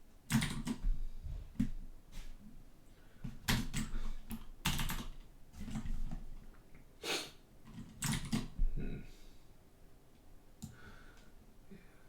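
Computer keyboard typing and clicks in irregular bursts, thinning out near the end.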